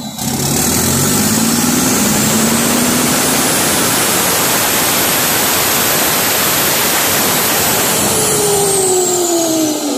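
Turbocharged truck diesel engine held at high revs with its newly fitted turbo howling: a high whistle climbs over the first few seconds and holds. Near the end the revs drop and the turbo whistle winds down in falling pitch.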